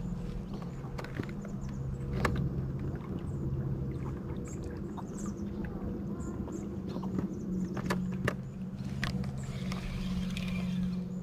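A steady low hum with scattered sharp clicks and taps as a spinning rod and reel are handled.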